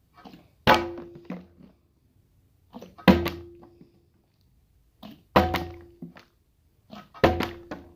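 Partly filled plastic water bottle landing hard with a thunk four times, about every two to two and a half seconds, in repeated bottle-flip attempts. Each landing has a short ring after it and a lighter knock just before it.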